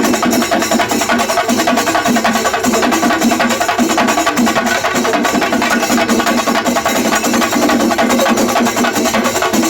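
Music of fast, dense drumming: rapid sharp strokes packed closely together, steady and loud throughout.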